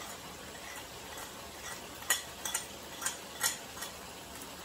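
A metal spoon taps and scrapes against a small plate as seasoning is pushed off into a pan, giving about half a dozen sharp clicks in the second half. Chicken frying in the pan gives a faint steady sizzle throughout.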